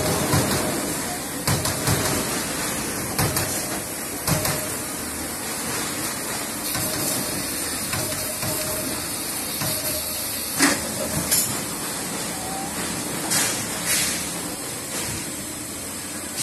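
Trumpf Trumatic 500 CNC punching press running: irregular sharp punch strikes over a steady hiss of the machine. The loudest strike comes about ten and a half seconds in.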